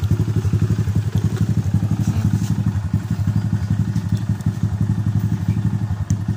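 Honda XRM 125 carburetted motorcycle's single-cylinder four-stroke engine idling steadily, an even quick putter of about ten to twelve beats a second.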